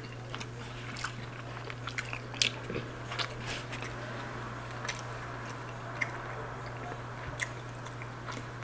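Close-up mouth sounds of a person chewing a mouthful of a steak, pinto bean and white rice bowl: soft wet smacks and clicks at irregular intervals, over a steady low hum.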